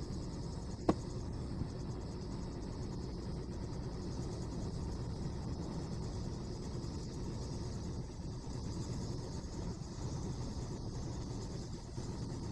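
Steady low background noise with a faint, fine high-pitched ticking over it, and one sharp click about a second in.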